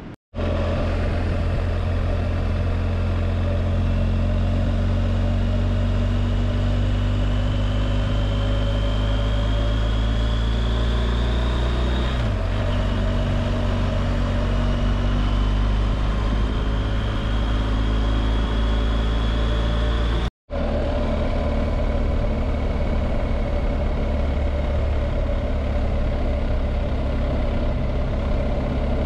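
BMW R1250GS Adventure's boxer twin running under way, with wind and road noise; its pitch climbs slowly, drops sharply about twelve seconds in, then climbs again. The sound cuts out for a moment about twenty seconds in.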